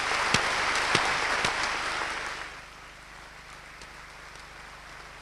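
Audience applauding, with individual claps audible, dying away about two and a half seconds in to a low steady hiss.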